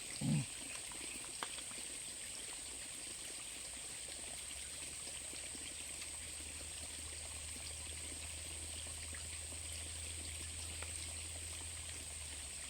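Steady hiss of running and dripping water outdoors after rain, with a short thump just after the start and a low hum that comes in about four seconds in.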